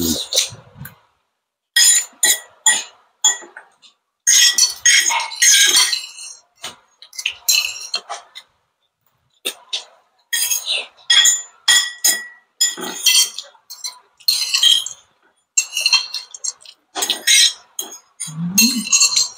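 Metal forks and spoons clinking and scraping against ceramic plates in quick, irregular bursts, amid close-up eating of noodles. There is a brief low hum near the end.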